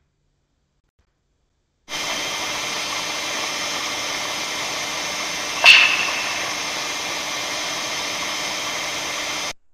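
A steady hiss of recording noise starts about two seconds in, and about halfway through a single sharp snap cuts across it. The snap is the clap sound that researchers tie to the northern lights, from a source about 70 m above the ground. The hiss cuts off suddenly near the end.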